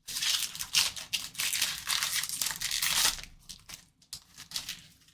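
Wrapper of a baseball card pack being torn open and crinkled: dense crackling for about three seconds, then a few scattered crinkles.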